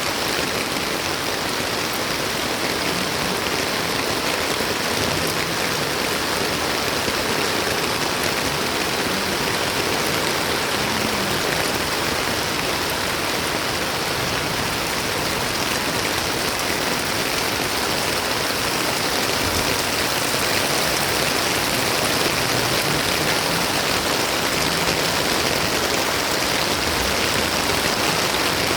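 Steady monsoon rain falling, a dense, even hiss of water.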